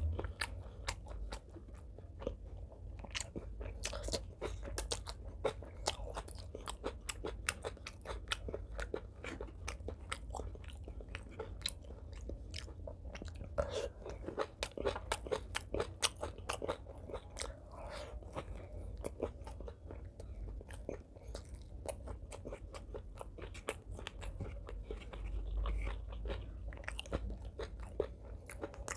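Close-miked chewing of mouthfuls of braised pork belly and rice: a steady run of small wet clicks and soft crunches as the food is bitten and chewed.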